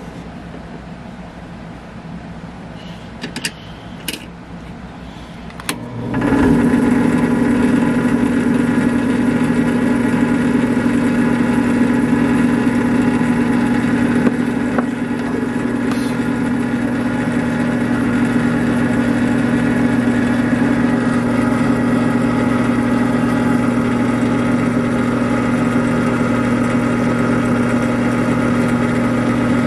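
A few light clicks, then about six seconds in a drill press switches on and its electric motor runs with a steady, unchanging hum.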